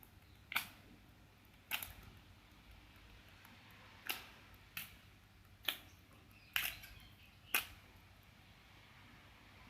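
Seven short, sharp clicks at irregular intervals over a quiet background.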